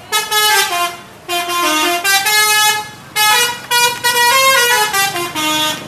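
Indonesian 'telolet' musical bus horn playing a stepping melody of several notes, in three loud phrases with short pauses between them.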